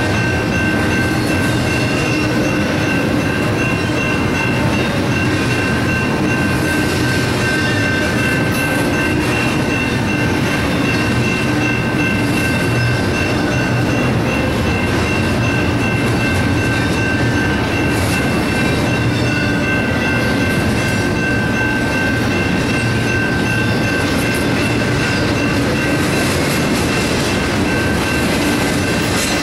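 Double-stack intermodal train of well cars rolling steadily through a grade crossing. The crossing's Safetran and General Signals Type-2 electronic bells ring without pause over the train noise.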